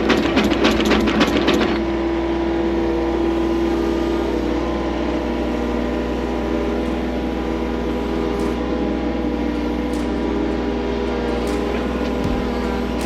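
Skid loader engine running steadily, with a rapid, even rattle for the first couple of seconds that then stops.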